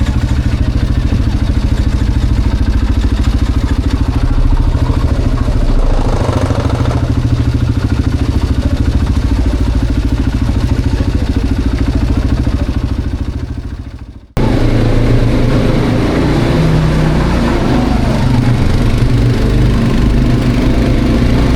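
Quad bike (ATV) engine running steadily under way. About two-thirds through, the sound fades to a brief drop-out and the engine comes straight back in with a rougher, more uneven note.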